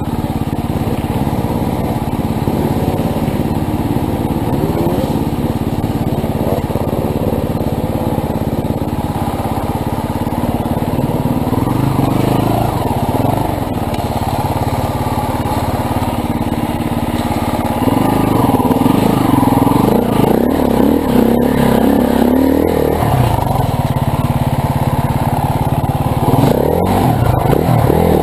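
Motorcycle engine noise running steadily, with revs rising and falling about twelve seconds in and again for several seconds from about eighteen seconds in.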